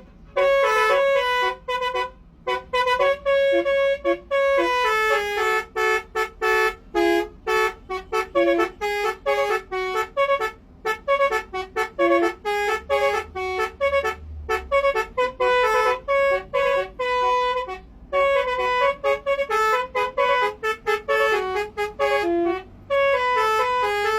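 Basuri telolet bus horn playing a fast melody of short horn notes that step quickly from pitch to pitch, with brief gaps between phrases.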